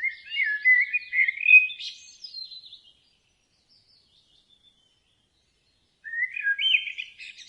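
A songbird singing: a rapid warbling phrase of quick up-and-down notes at the start, then silence, then a second warbling phrase about six seconds in.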